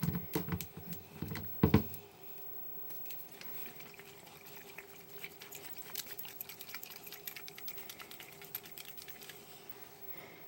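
Elmer's glue bottle holding glitter glue and water being shaken to mix them: a few loud knocks as the bottle is handled, then from a few seconds in a fast, steady rattle and slosh.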